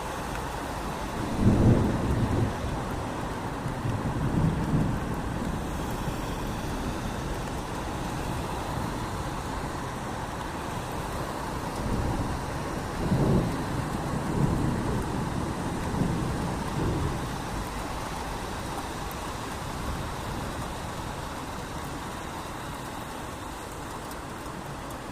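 Steady rain falling, with low thunder rumbles rolling in: one about a second and a half in, another around four seconds, and a longer series of rumbles past the middle.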